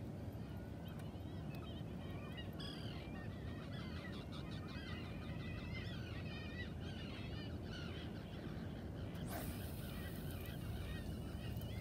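A flock of birds calling, with many short wavering calls overlapping, over a steady low rumble. A brief rush of noise comes near the end.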